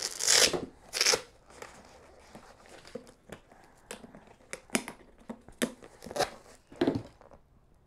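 Tissue paper rustling twice as a motocross boot is shifted in its box, followed by a run of sharp, irregular clicks from the boot's buckles being handled.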